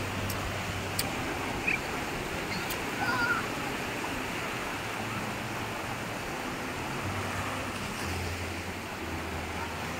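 Sea surf washing in the shallows, a steady rush of water, with a few faint clicks in the first three seconds.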